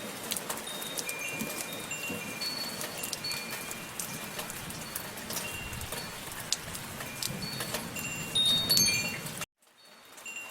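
Steady rain with wind chimes ringing in scattered single tones. Near the end a brief flurry of chime strikes, then the sound cuts off suddenly and comes back faintly a moment later.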